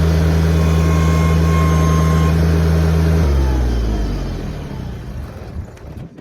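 Tractor engine running steadily, then shut off a little over three seconds in, its pitch falling as it winds down to a stop.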